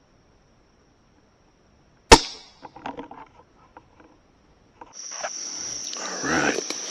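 A single shot from a Savage .17 HMR rimfire rifle about two seconds in: a sharp crack with a short ringing decay, followed by a few faint clicks and rattles. From about five seconds in, a steady high insect drone with rustling through brush.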